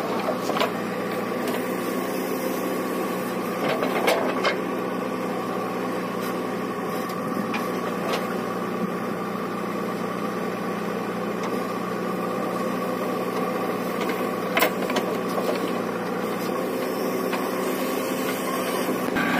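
Diesel engine of a JCB backhoe loader running steadily as it digs soil and loads it into a tractor trolley, with a few sharp knocks along the way.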